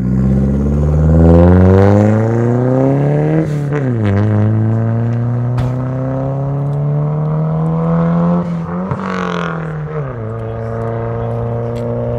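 Straight-piped Nissan 200SX's turbocharged CA18DET four-cylinder accelerating hard away. The exhaust note rises, drops at a gear change about three and a half seconds in, climbs again, falls around nine to ten seconds in, then holds steady.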